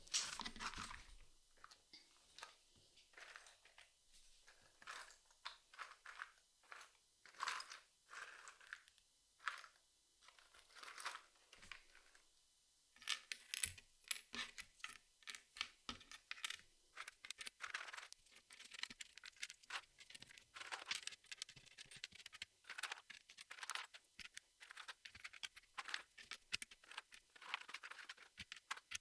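Jigsaw puzzle pieces being handled and fitted on a table: a faint run of small clicks, taps and scrapes. It is sparse for the first dozen seconds, then busier and more continuous from about halfway.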